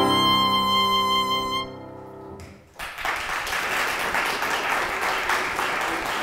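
A violin holds a long final note that fades out about two seconds in. After a short pause an audience breaks into applause.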